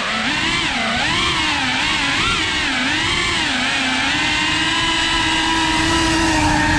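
A 3.5-inch cinewhoop FPV drone's motors and ducted propellers whining, the pitch rising and falling over and over with the throttle, then holding steady for the last few seconds.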